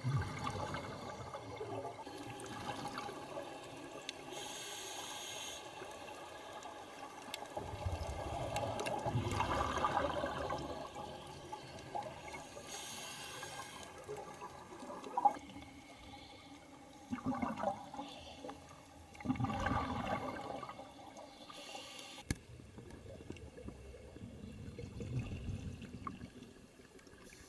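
Underwater recording of scuba divers' exhaled air bubbling up, in repeated surges over a steady watery hiss.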